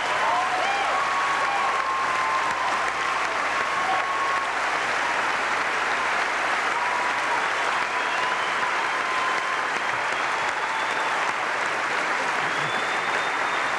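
Large auditorium audience applauding, a steady unbroken ovation at the end of a speech.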